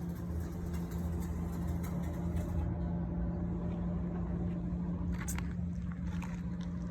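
A machine running steadily with a low, even hum, with a few light clicks about five seconds in.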